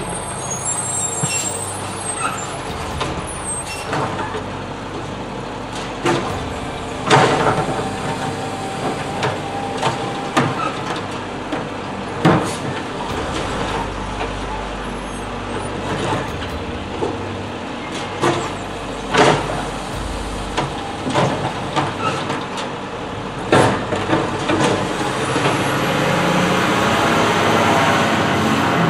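Mack LR side-loading garbage truck's diesel engine running as its automated arm grabs, lifts and tips the polybins into the hopper, with sharp bangs of the cans against the arm and hopper and a deeper engine swell during the lift. A rising rush of road noise comes near the end.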